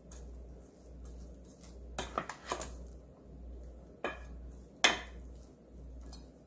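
Wooden rice paddle stirring and scraping cooked rice in a rice cooker's inner pot, knocking against the pot a few times: a cluster about two seconds in, then single knocks around four and five seconds.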